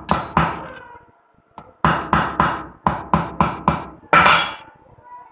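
Claw hammer striking the steel parts of a Delco Remy starter drive (Bendix) shaft, metal on metal, to knock the collar down over its retaining ring until it seats. About nine sharp, ringing blows come in quick groups of two, three and four, then a longer rattling clatter near the four-second mark.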